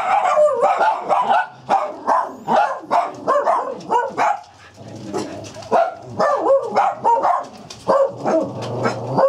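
Small dogs barking over and over in short, high barks, with a brief lull about four to five seconds in.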